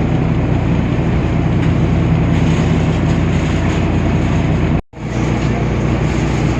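Temsa Avenue LF city bus's DAF PR 228 six-cylinder diesel running steadily, a loud, even drone with a low engine hum. The sound drops out completely for an instant about three-quarters of the way through, then returns.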